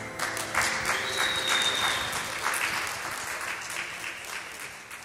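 Audience applauding, the clapping thinning and fading toward the end.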